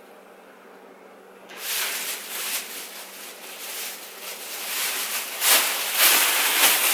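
Near silence for about a second and a half, then rustling and crinkling as clothes are handled and moved about, getting louder toward the end.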